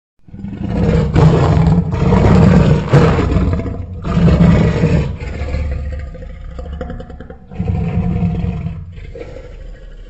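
Film sound effect of a Tarbosaurus roaring: a deep, drawn-out roar starts after a moment of silence and stays loud for about five seconds, with a short break near four seconds. It then sinks into a lower growl, swells into another roar around eight seconds, and trails off into a low growl.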